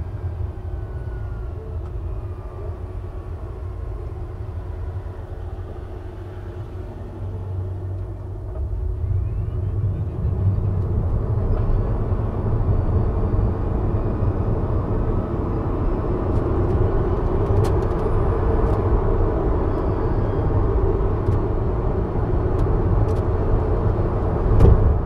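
Tyre and road noise of a Tesla Model 3 Performance, an electric car, driving on a winding mountain road: a steady low rumble that grows louder about ten seconds in, with a short thump near the end.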